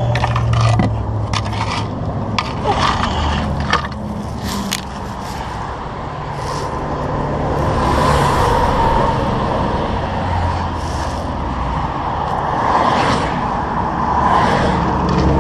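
Highway traffic going past close by, swelling and fading as vehicles pass, over a low steady hum. Several sharp knocks and scrapes come in the first few seconds.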